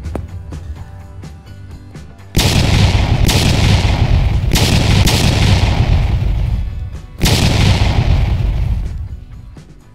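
A run of loud blasts over background music: the first hits suddenly about two seconds in, with more following, and another big one about seven seconds in, each dying away slowly.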